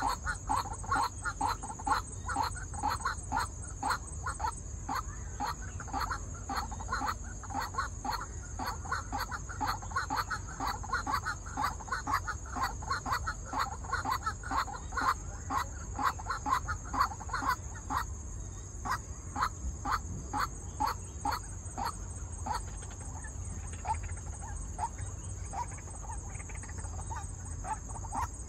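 White-breasted waterhen calling: a fast, even run of short repeated notes, about three or four a second, that thins out into sparser calls about two-thirds of the way through.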